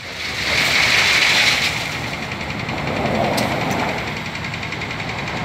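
Diesel engine of a truck pulling a semi-trailer tipper runs steadily with a knocking clatter while the trailer's bed is held raised after tipping its load. A louder rushing hiss sits over it for the first second and a half.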